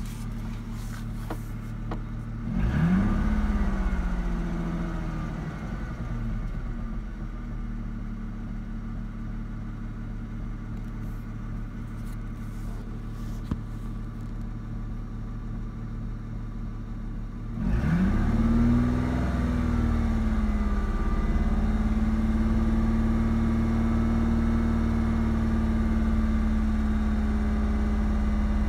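2004 Ford Mustang's 3.8L V6 idling, revved up briefly about two and a half seconds in and settling back, with a single sharp pop a little before halfway. Revved again past the middle, then held at raised revs. The engine has a faulty ignition coil pack that makes it pop and shake at idle.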